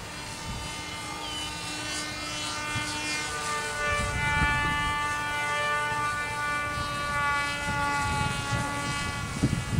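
Radio-controlled UB-130 model airplane's motor and propeller whining steadily in flight, the pitch drifting slightly as the plane moves. Wind gusts buffet the microphone about four seconds in and again near the end.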